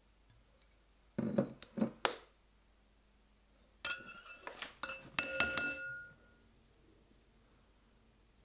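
A metal measuring spoon clinking against a glass mixing bowl: a quick cluster of sharp clinks that ring briefly, starting about four seconds in. A few duller knocks come about a second in.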